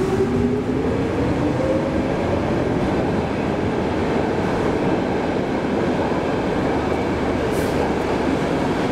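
Stockholm Metro train pulling out of an underground station. Its motors whine up in pitch as it accelerates over the first couple of seconds, then the steady rumble of wheels on rail carries on as the cars run past.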